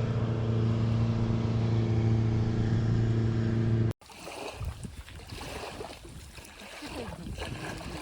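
Motorboat engine running with a steady drone for about four seconds, then a sudden cut to quieter, irregular water splashing.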